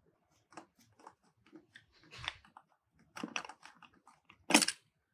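Small metal carburetor parts being handled and taken apart by hand on a bench: scattered light clicks and clinks, with a louder knock about four and a half seconds in.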